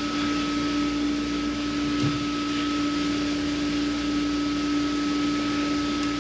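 Steady mechanical hum with two constant tones, a low one and a higher one, over an even hiss, and a faint knock about two seconds in.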